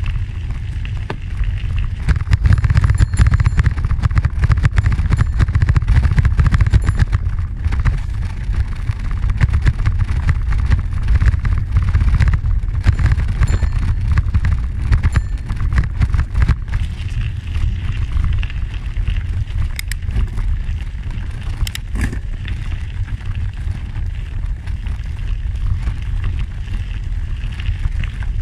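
Heavy wind rumble on the microphone of a camera riding along a gravel trail by bicycle, with the crackle and rattle of tyres over the gravel and the wooden bridge deck, and two sharp clicks about two-thirds of the way through.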